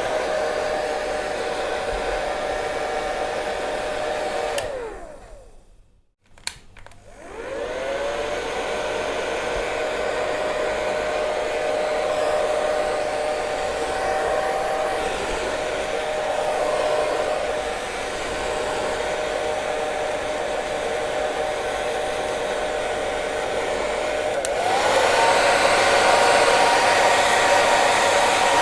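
Hair dryer blowing steadily, its motor giving a whine over the rush of air. About five seconds in it winds down to near silence, a click sounds, and it spins back up. Near the end it steps up to a higher, louder setting.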